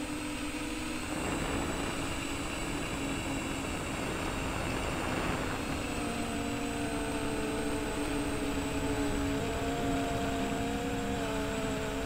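Brushless motors and triblade propellers of a modded MJX Bugs 3 quadcopter running in flight, heard through its onboard camera's microphone: a steady whine whose pitch shifts about six seconds in. Wind noise on the microphone rushes over it from about a second in until about five and a half seconds.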